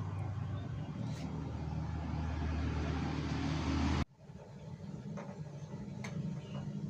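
An engine running steadily with a low hum. About four seconds in, the sound cuts off abruptly, then a quieter steady engine hum rises back.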